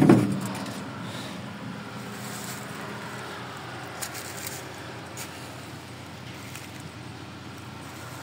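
A knock right at the start, then a steady low mechanical drone like an engine running at a distance. There is light wind on the microphone and a few soft handling clicks.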